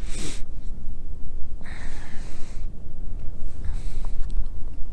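Strong wind buffeting the microphone with a constant low rumble, and a man's two sharp, hissy breaths close to the microphone, one at the start and one about two seconds in.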